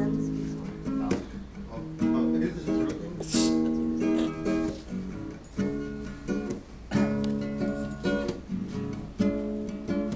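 Acoustic guitar strumming chords in a repeating rhythm, an instrumental intro with no singing.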